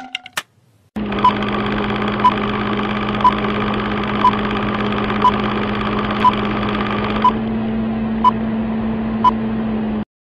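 Film-countdown sound effect: a film projector running with a steady whir and hum, and a short high beep once a second, nine beeps, cutting off suddenly near the end.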